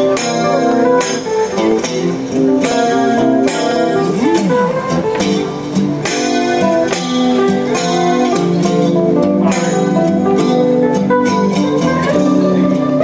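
Guitar playing an instrumental blues break with no singing: a run of changing notes over chords.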